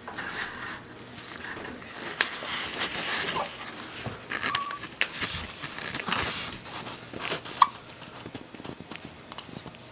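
Baby hiccuping: several short, sharp hics at uneven intervals, the loudest about three-quarters through, amid soft rustling and movement sounds.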